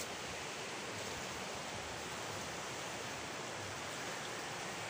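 Steady rushing of a river in flood, an even hiss with no other distinct events.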